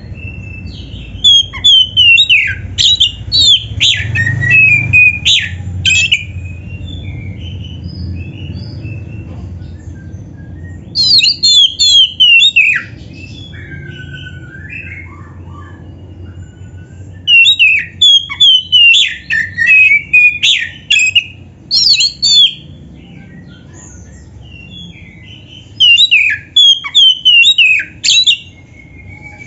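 Oriental magpie-robin (kacer) singing a loud, aggressive song in four bursts of rapid, varied whistled phrases separated by pauses, over a steady low hum.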